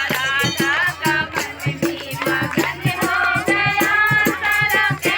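Music: a voice singing a wavering melody over a steady beat of percussion strokes and a shaken rattle.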